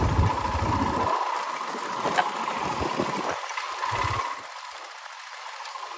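Royal Enfield Himalayan's single-cylinder engine running at low speed as the motorcycle rolls over a rough, potholed road, with a sharp tick about two seconds in. The sound gets quieter from about four seconds in.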